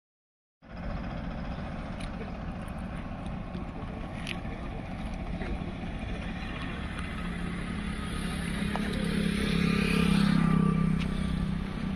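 A motor vehicle's engine and road noise, steady after a brief moment of silence at the start, then growing louder to a peak about ten seconds in as a vehicle passes or revs, before easing off again.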